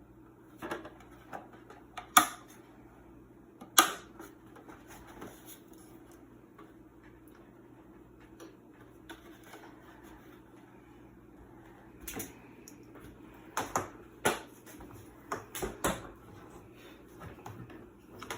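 Scattered sharp clicks and knocks from hands handling parts and tools inside a washing machine, the loudest two about 2 and 4 seconds in and a cluster of them later on, over a steady low hum.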